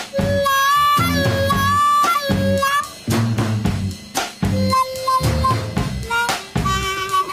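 Blues harmonica solo with long held notes that bend at their ends, over drum kit and electric bass, in a 1968 British blues band recording.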